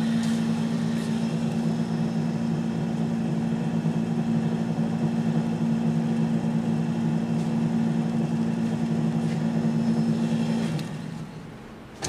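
Orbital drive of a Gardner 2V18 vertical double-end disc grinder running under electric motor power, a steady even hum. About eleven seconds in it is switched off and winds down.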